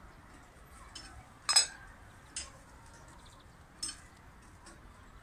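Metal clinks of a small cooking pot's lid and tongs being handled as the pot is opened: four short, sharp clinks, the loudest about a second and a half in.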